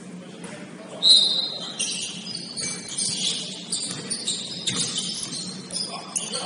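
Basketball sneakers squeaking on a hardwood gym floor as players cut and stop, a loud squeak about a second in and many shorter ones after, with a basketball being dribbled.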